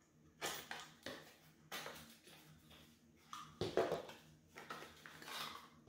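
Rustling, scrapes and light knocks of packaging being handled as a skincare product is unpacked: a series of short handling sounds, the loudest a little past halfway.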